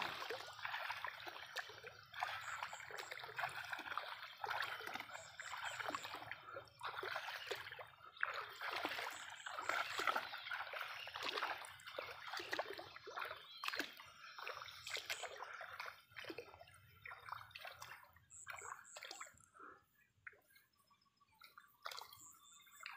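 Shallow pond water sloshing and splashing irregularly around wading legs, thinning out to a few drips and small splashes in the last few seconds.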